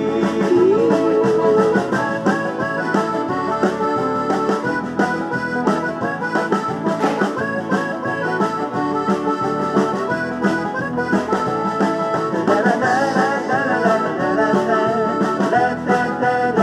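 Upbeat country dance music playing in an instrumental passage between verses: a lead instrument carries the melody over a steady beat.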